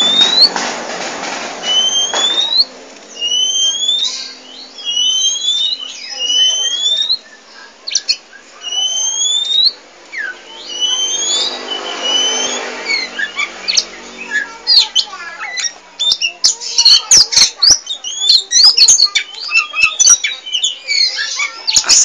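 Oriental magpie-robin (white-bellied 'kacer poci' form) singing: a run of loud rising whistled notes about once a second, then, about halfway through, fast scratchy chattering notes mixed with sharp clicks.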